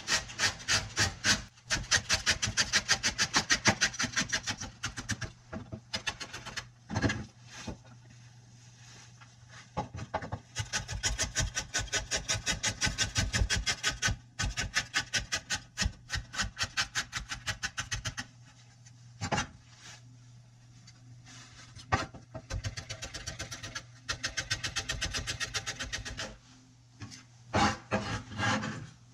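Kitchen knife chopping vegetables on a wooden cutting board, in runs of rapid, even strokes several a second, with short pauses between the runs.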